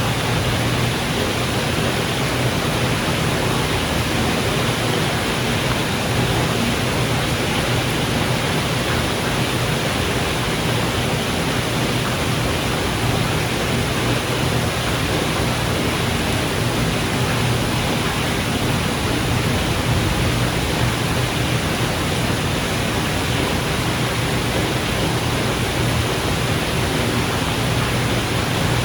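Steady rain falling, an even rushing noise that holds level throughout, with no thunderclap.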